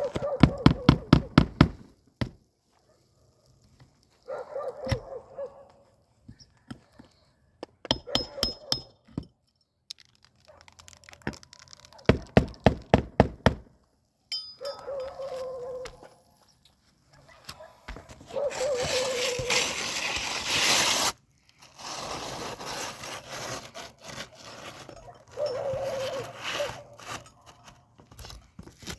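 Roofing tools working asphalt shingles loose: scraping and prying, with bursts of rapid clicking. A wavering whine comes and goes, and the scraping is loudest about two-thirds of the way through.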